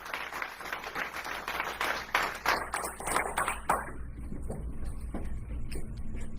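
Audience applauding, dense clapping that thins out about four seconds in to a few scattered claps.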